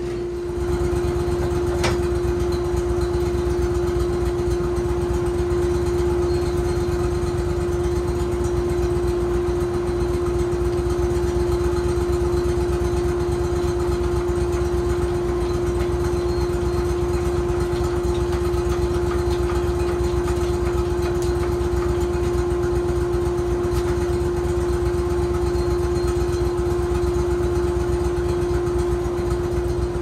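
An engine running steadily at a constant speed, with a strong unchanging hum. A single click about two seconds in.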